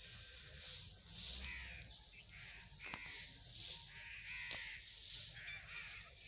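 Bare feet swishing through dew-wet grass and maize leaves at a walking pace, about two soft rustles a second.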